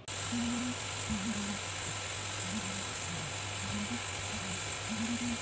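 Hot-air rework gun blowing a steady hiss over a low fan hum, heating the shorted HDMI IC so it can be lifted off the circuit board.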